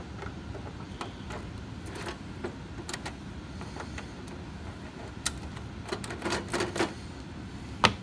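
Tubular lock pick turning in a tubular cam lock, giving light, scattered metal clicks, with a cluster of clicks late on and one sharper click just before the end as the pick comes out.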